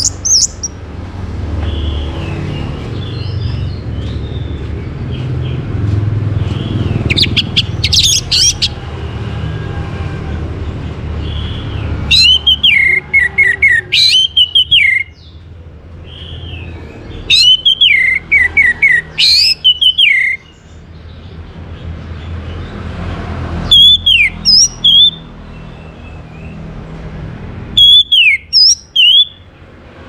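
Orange-headed thrush singing: phrases of loud whistled notes that sweep down and warble, coming every few seconds with short pauses between, over a steady low background rumble.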